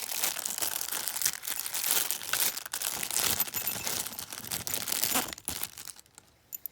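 Plastic packaging crinkling and rustling as it is handled, with many small clicks through it; it stops about six seconds in.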